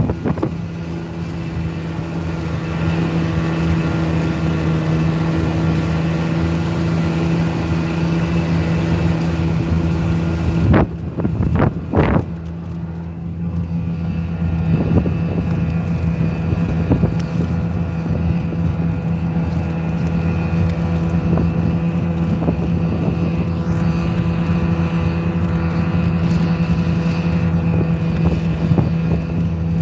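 Snowmobile engine running steadily while riding across a frozen lake, with two sharp knocks about a second apart near the middle.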